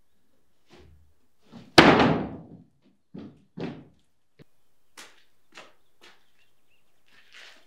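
Footsteps thudding on loose OSB sheets laid over wooden floor joists, heard from the room below: one heavy thud about two seconds in, then two lighter ones. Lighter footsteps on a tiled floor follow near the end.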